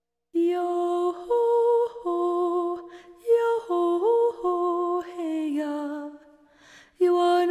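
A woman's solo voice singing unaccompanied in wordless vocables, in held, smoothly gliding notes with short breaks between phrases. It enters about half a second in and pauses briefly near the end before coming back.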